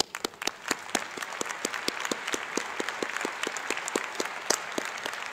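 Crowd applauding, thin at first and quickly filling in. One person's claps close to the microphone stand out at a steady pace of about four a second.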